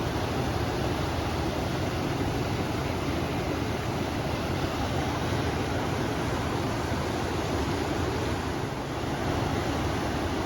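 River water rushing steadily, mixed with wind, a constant low full rushing noise.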